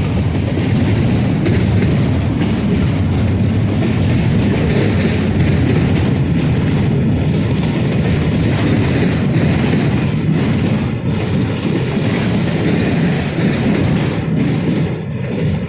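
Norfolk Southern freight train rolling past slowly, its steel wheels clicking over the rail joints over a steady low rumble.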